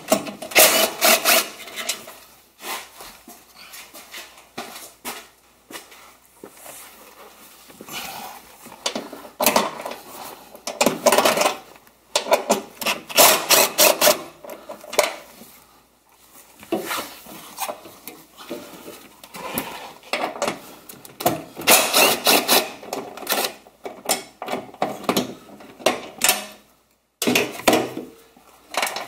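Screws holding the rear seat base being backed out with a tool: repeated bursts of rapid mechanical clicking and rattling, each lasting a second or two, with short pauses between.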